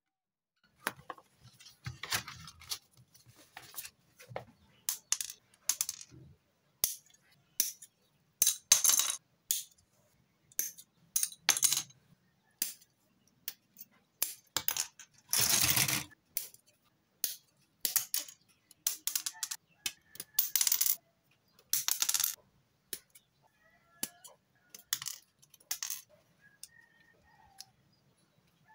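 Plastic model-kit runners and hobby tools handled on a tabletop: a string of sharp clicks and snips as side-cutting nippers cut parts from the plastic runners, with clattering as runners and tools are moved and set down, one longer clatter about halfway through.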